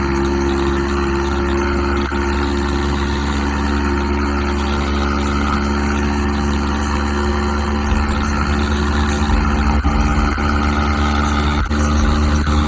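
Tractor diesel engine running steadily at road speed, heard from the driver's seat.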